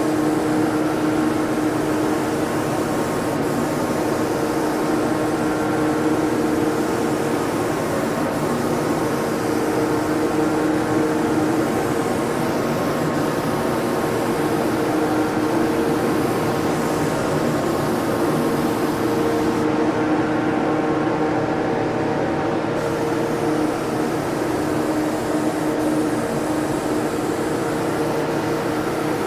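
Spray booth exhaust fan running together with an Apollo Precision-5 Pro HVLP turbine: a steady rush of air over an even hum. About two-thirds of the way in, the highest part of the hiss drops away for about three seconds.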